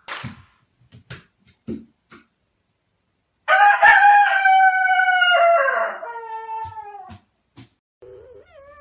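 An animal's long call, held at one pitch for about two seconds and then falling away, after a few soft clicks and knocks.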